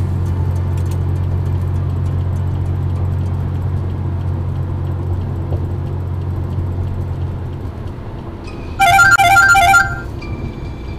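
Steady low road and engine noise heard inside a car at highway speed. About nine seconds in, a loud warbling tone sounds for about a second.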